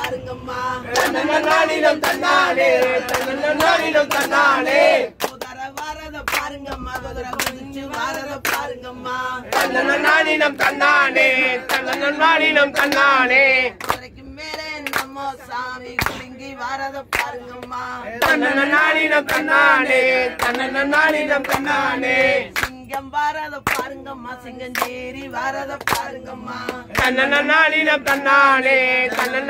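Group singing a Tamil kummi folk song, with hand claps in a steady beat about every half to three-quarters of a second. The singing swells and drops back every few seconds.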